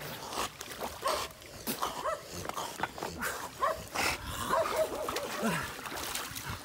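A dog giving short, quick yelps and whines, several a second, each rising and falling in pitch, with water splashing.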